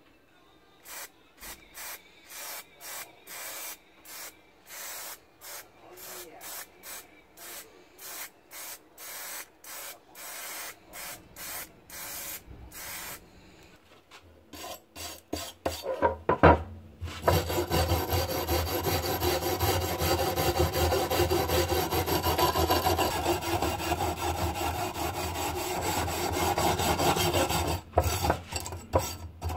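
Rust being scrubbed off an old drawknife: rubbing strokes, about two a second. About halfway through they give way to a louder continuous rubbing with a steady hum, and separate strokes return near the end.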